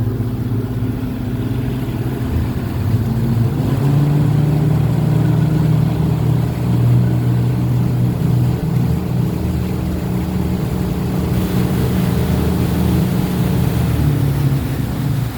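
A motorboat engine is running. It speeds up a few seconds in, holds steady under power, then eases off near the end.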